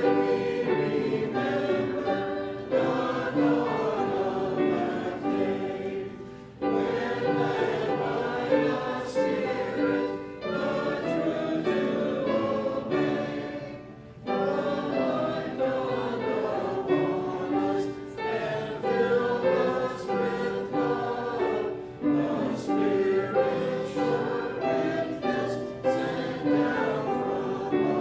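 Congregation singing a hymn together, in phrases broken by short pauses about six and a half and fourteen seconds in.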